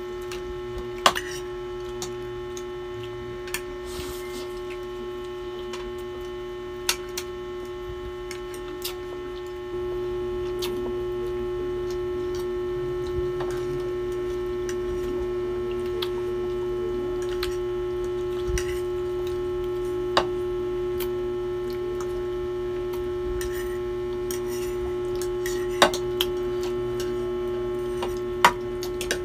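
A steady hum, a little louder from about ten seconds in, with a few scattered sharp clicks of forks and spoons against plates as people eat noodles.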